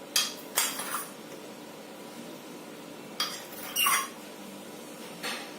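A spoon clinking and scraping against a mixing bowl as sugar is added to whipping cream. There are a few short clinks in the first second and a few more in the second half.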